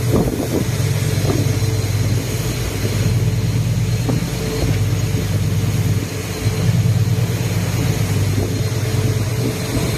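An engine running steadily with a low drone that dips briefly about six seconds in.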